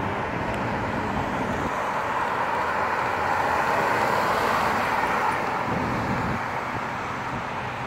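A red Ferrari convertible drives slowly past, with engine and road noise building as it approaches, loudest as it passes about halfway through, then fading as it pulls away.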